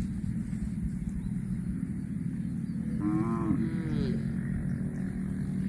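A cow gives one short, arching moo about three seconds in, over a steady low drone.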